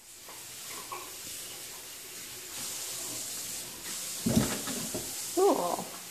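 A steady hiss, with a loud low sound a little past four seconds in and a young pet's short high squeaky cry of two quick notes about five and a half seconds in.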